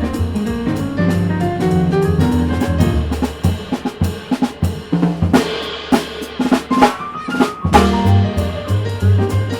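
Live jazz piano trio of piano, double bass and drum kit playing a swing standard, with the drums to the fore. About three seconds in, the steady low bass line thins out, leaving sharp drum and cymbal hits and a rising run of notes, and the bass line comes back near the end.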